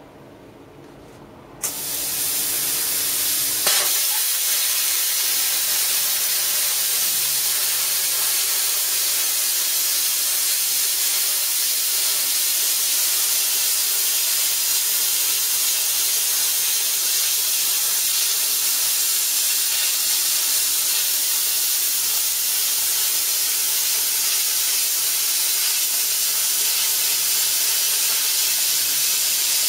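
Plasma cutter torch cutting steel plate: a loud hiss starts suddenly about two seconds in, a short crack follows a couple of seconds later, then a steady, even hiss as the torch is drawn along the cut.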